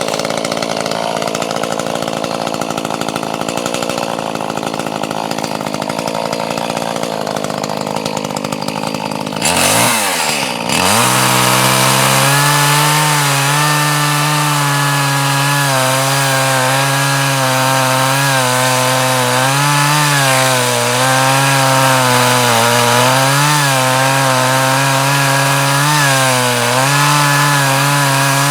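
Gas chainsaw running at high throttle, then the throttle is let off about ten seconds in and the engine falls to a lower, wavering speed for the rest of the time.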